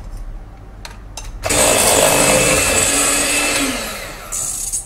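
Electric hand mixer switched on about a second and a half in, its beaters running through a thick mixture of cottage cheese and egg yolks in a bowl. Its pitch sags a little near the end, with a brief louder stretch, before it switches off.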